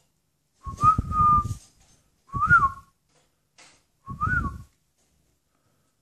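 Three short loud whistles, about a second and a half apart: the first rises and holds its note, the next two rise and fall, each with a breathy rumble beneath.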